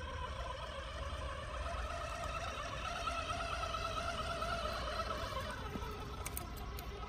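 Electric drive motor and gearbox of a Cross-RC UC6 6x6 scale RC truck whining as it drives through thin ice, the pitch rising about a second in and falling again near the end, with a few sharp cracks of the breaking ice near the end.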